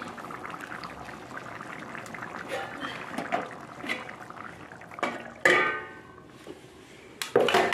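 Egg curry bubbling and crackling as it simmers in an aluminium kadai. Then a metal plate is set over the pan as a lid: one loud, ringing clang about five and a half seconds in and another clatter near the end.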